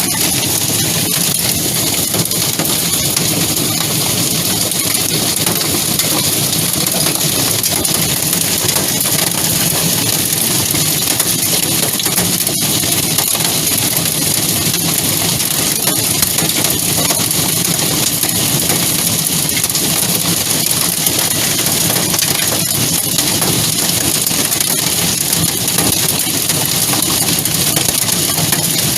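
Hailstorm in strong wind: a loud, steady, dense rattle of countless small impacts with a constant hiss that does not let up.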